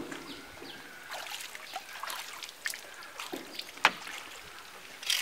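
Small splashes and sloshing of pond water at the bank, with scattered sharp knocks and clicks; one loud knock a little under four seconds in.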